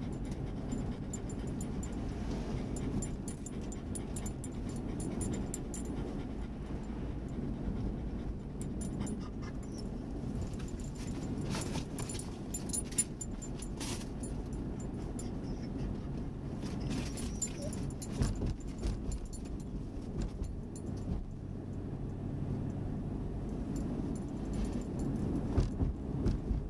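Dog whining and panting with excitement in the back seat of a moving car, its tags jingling now and then, over the car's steady road rumble.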